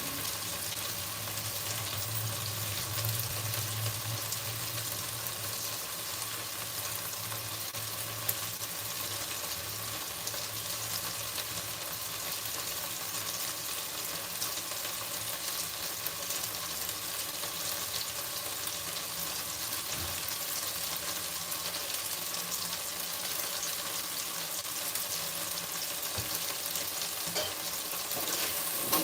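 Food frying in hot oil in a pan, a steady sizzle.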